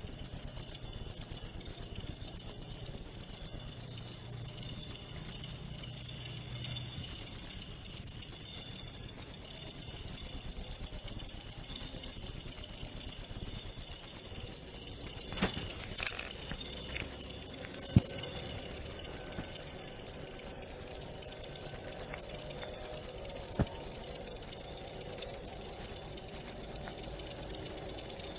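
Cricket chirping in a continuous, rapid, high-pitched trill.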